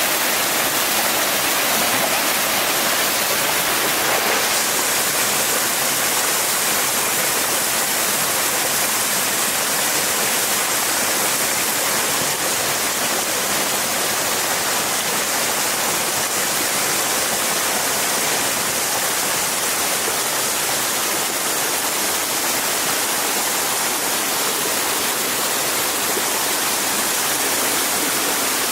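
A steady rush of water, even and unbroken.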